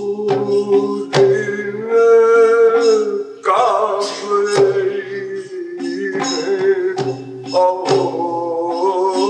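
A man singing a Hindi devotional pad in long, wavering held notes over a steady instrumental drone, with a few sharp percussion strikes.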